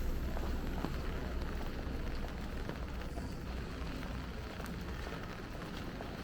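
Light rain pattering on an umbrella: a steady hiss of many small drop ticks. A low steady rumble lies underneath and eases off about five seconds in.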